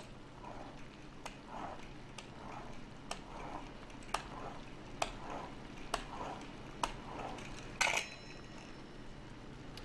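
Metal pizza cutter wheel rolling through fresh pasta sheets on a plastic cutting board, cutting strip after strip at about one stroke a second, each with a light tap of the wheel on the board. Near the end there is a louder clack.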